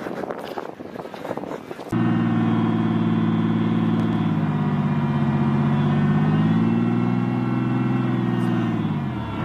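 About two seconds of running footsteps and gear rustling, then an armoured military vehicle's engine running steadily at a low, even pitch, sagging in pitch just before the end.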